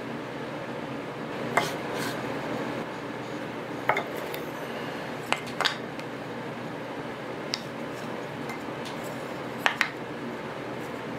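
A handful of sharp clicks and light knocks, spaced irregularly, over a steady hiss: small tools and pieces of wood being handled and set down on a workbench.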